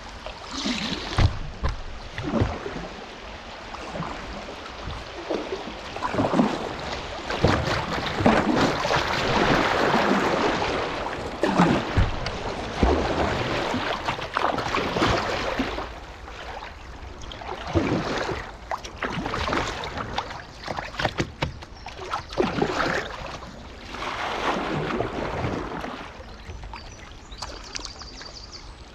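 Kayak paddle strokes dipping and splashing in a river, with water rushing past the hull. The rush of water grows louder over choppy, shallow water around the middle.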